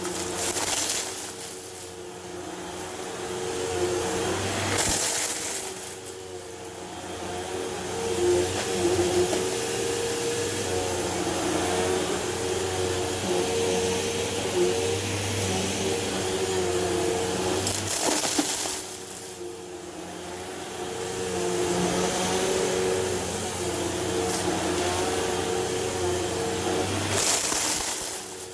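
Hoover Elite Rewind Plus upright vacuum cleaner running with a steady motor hum. Its rushing hiss swells and fades every several seconds.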